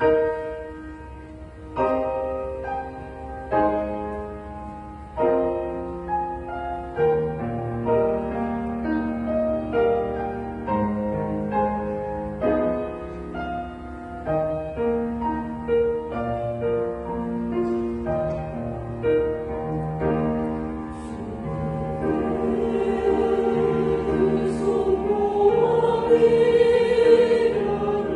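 Church choir anthem with piano accompaniment: the piano plays an introduction of struck chords, and the choir comes in about twenty seconds in, singing held notes with vibrato that grow louder.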